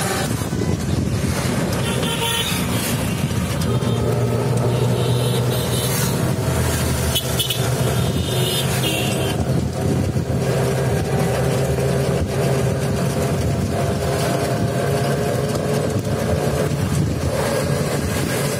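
Ride in a motor vehicle: a steady engine drone and road noise, with a few short horn toots in the first half.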